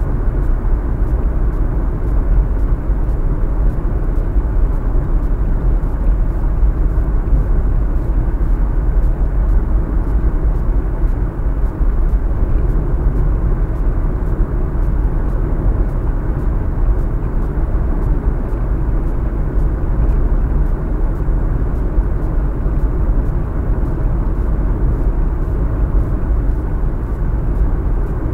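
Steady low rumble of a Honda Fit driving on an expressway, heard from inside the cabin: road and engine noise with no single events.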